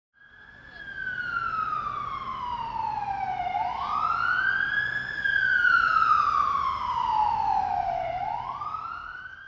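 Ambulance siren wailing: its pitch slowly falls, then climbs back more quickly, twice over. It fades in at the start and fades out near the end.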